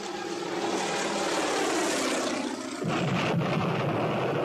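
Propeller airplane engine droning overhead, its pitch falling as it passes; about three seconds in a deeper, louder drone takes over.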